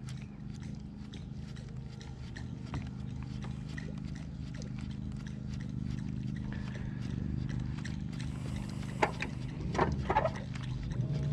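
Steady low hum of the boat's electric trolling motor, with faint ticks throughout and a few short splashy bursts about nine and ten seconds in as a topwater walking bait is worked across the surface.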